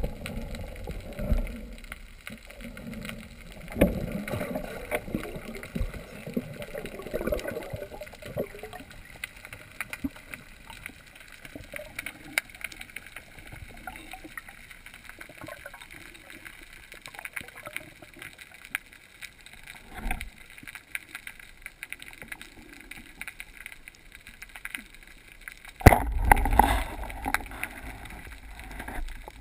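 Underwater sound heard through a GoPro's waterproof housing: muffled churning water noise with scattered faint clicks as a freediver swims down over the seabed. About 26 seconds in, a sudden loud thump and a few seconds of louder churning as the speargun is fired at a fish.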